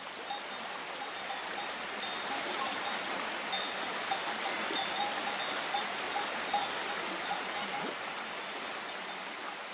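Shallow mountain stream rushing steadily over a small rocky cascade, with the bells of grazing cows clinking irregularly.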